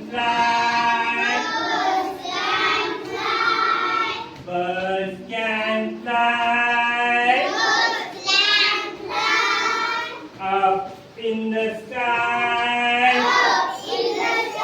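A child singing a simple rhyme in short, held phrases with brief pauses between them.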